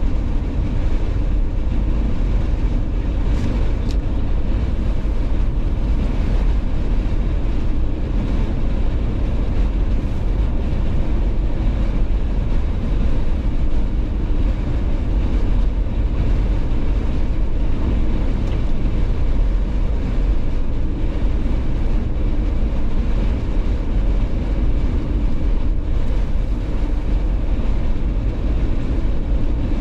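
A Jeep being driven steadily: a constant low rumble of engine and tyres on the road, with a hiss higher up.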